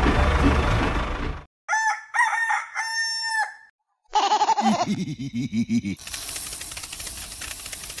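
Engine noise that cuts off in the first second and a half, then a rooster crowing about two seconds in, followed by a run of hen clucks. From about six seconds on there is a steady scratchy hiss.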